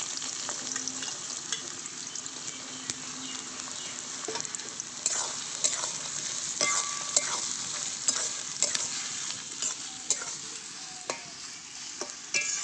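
Sliced onions sizzling in hot oil in a metal kadai, being fried for beresta. A metal spatula scrapes and taps against the pan as they are stirred, more often from about five seconds in.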